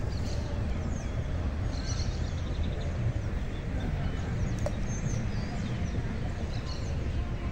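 Outdoor pond-side ambience: birds chirping in short, high, scattered notes over a steady low rumble.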